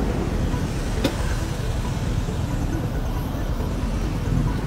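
Motorcycle running with road and wind noise, heard from the pillion seat while riding along a street in traffic, with one sharp click about a second in.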